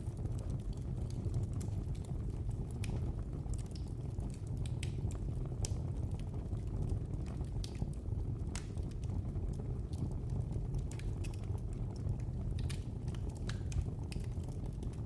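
Wood fire burning in a fireplace: a steady low rumble of the flames with irregular sharp crackles and pops, several a second.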